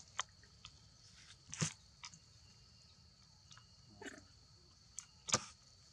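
Macaques eating cooked rice from a metal tray: faint scattered clicks and taps of hands and rice on the tray. Two sharper clicks come about a second and a half in and about five seconds in.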